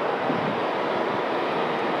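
Boeing 777 twin-engine jetliner taxiing, its turbofan engines running with a steady rushing noise.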